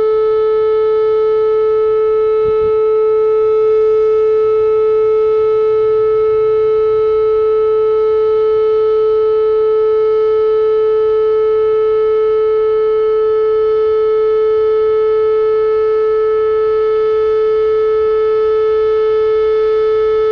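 Whelen outdoor tornado warning siren sounding its weekly test: one loud, steady tone held at a constant pitch, with no rise or fall.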